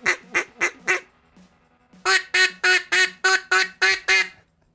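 Handmade reed duck call (a Duck Commander cut-down call) blown in a string of quacks, about three a second, stopping about a second in. After a short pause comes a second even run of eight quacks, a little faster.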